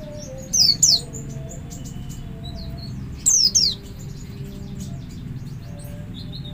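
White-eye (pleci) giving its double call: two quick, high chirps slurring downward, heard twice, about a second in and again just past three seconds. Softer twittering runs between the pairs over a steady low background hum.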